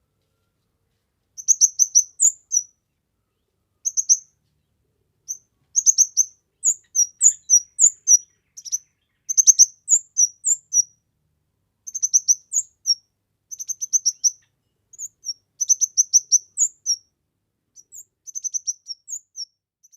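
Kemade bird singing lustily: clusters of high, quick chirps and short trills, each phrase about a second long with brief pauses between, against a clean silent background.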